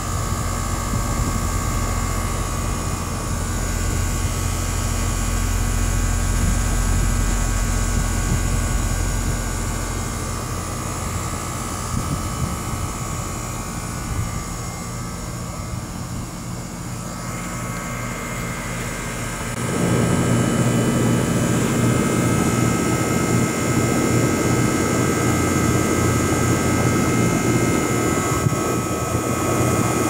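Air-conditioner unit running: a steady fan whoosh and motor hum with a constant high tone, rising in level about two-thirds of the way through.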